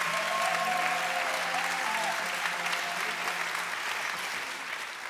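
Studio audience applauding, fading toward the end, with a few held musical notes underneath for the first few seconds.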